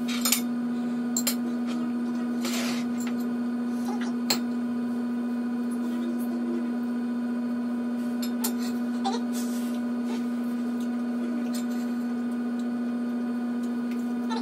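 A steady low electrical hum, with a few sharp pops and crackles scattered through it, two of them close together near the start, from hot oil spitting in the frying pan.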